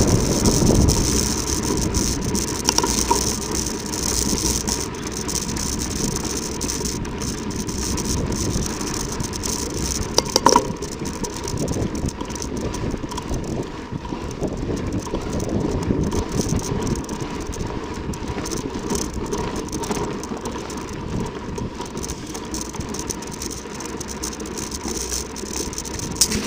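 Mountain bike rolling downhill over loose volcanic ground: steady tyre noise and the bike rattling, with a sharper knock about ten seconds in.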